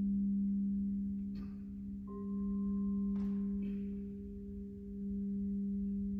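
A singing bowl holding a steady low tone that slowly swells and fades. About two seconds in, a higher ringing tone joins for a second and a half, with a few faint brief noises in between.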